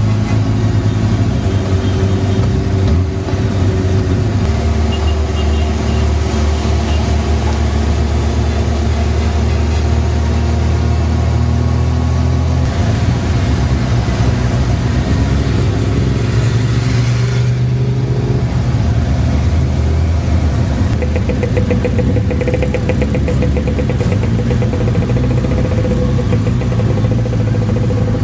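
Motorcycle engines running at low speed in a large procession: a loud, steady low engine note that shifts in pitch a few times as the bikes change speed, over constant road and wind noise.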